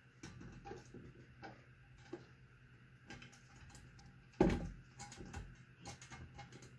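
Faint clicks and taps of a screwdriver and metal parts as screws are fitted into a ceiling fan's metal housing, with one louder knock about four and a half seconds in.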